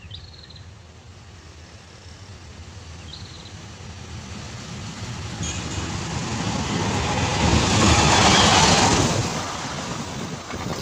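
Diesel-hauled passenger train approaching and passing close by: a rumble of engine and wheels on rail that grows louder, loudest about eight seconds in as the carriages roll past, then eases a little.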